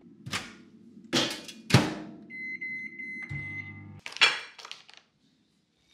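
Microwave oven humming as it runs, with a few sharp clacks and one long beep about two seconds in. The hum stops about four seconds in and a loud clack follows.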